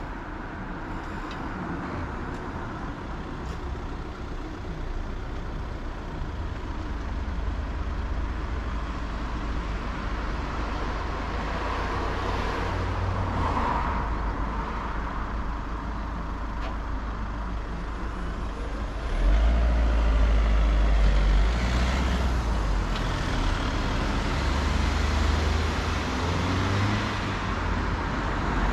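Road traffic at a junction: vehicle engines running and cars moving past, with a low rumble that gets louder about two-thirds of the way through.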